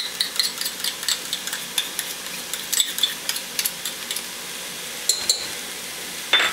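Chopped vegetables sautéing in olive oil in a stainless steel pot with a steady sizzle, while a small spoon scrapes and taps minced garlic out of a small cup into the pot in a quick run of clicks. A couple of clinks follow a little after five seconds, and a louder ringing clink of a dish being set down comes near the end.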